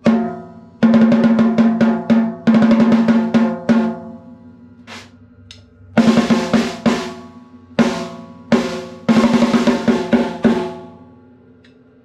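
Pearl Soprano 12-inch by 7-inch maple snare drum, fitted with new parts and an Evans head and tuned to 365/450 Hz, played with sticks in quick rolls and fills. It rings at a steady pitch through several bursts of rapid strokes with short pauses between, and rings out near the end. The drum is heard through the camera's own microphone.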